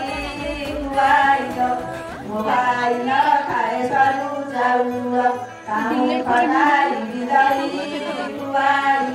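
A woman singing a song into a corded handheld microphone, her voice amplified, in phrases of long, wavering notes with short breaks between them.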